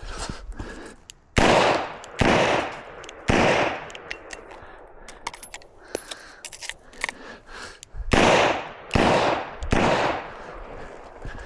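Smith & Wesson 627 revolver firing: three shots about a second apart, a pause of about four seconds filled with small clicks and knocks, then three more shots.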